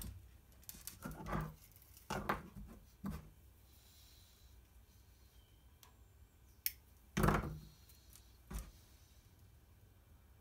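Hands handling fishing line and terminal tackle on a worktop: scattered light clicks, small knocks and rustles, with a sharp click about two-thirds through followed by a louder knock.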